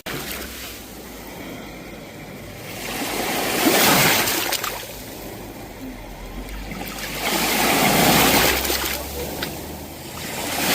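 Sea waves washing onto a shore, the surf noise swelling and falling back about every four seconds, with two surges in the middle and another building at the end.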